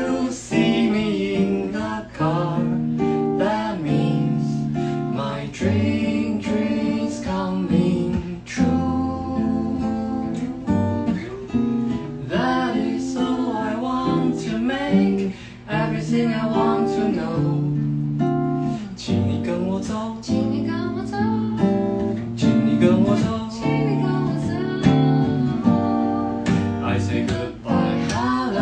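Acoustic guitar strummed and picked, accompanying a woman and a man singing together.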